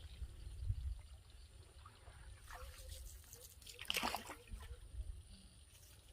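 Water splashing and trickling against a canoe crossing a river, with two louder splashes about two and a half and four seconds in, over a low steady rumble.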